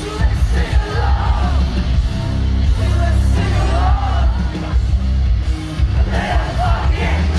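Live heavy rock band playing loud, with a heavy bass-and-drum low end and a voice singing and yelling over it.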